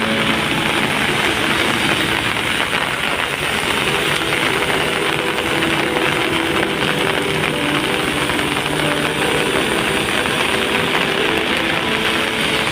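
Heavy rain falling: a loud, dense, steady hiss with no let-up.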